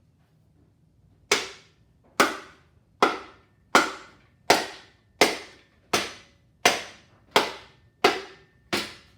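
Eleven sharp taps, evenly spaced a little under one a second, each ringing briefly. This is a piston being tapped down through a ring compressor into the engine's cylinder bore, and it is not going in right because a ring is hanging up and slipping out.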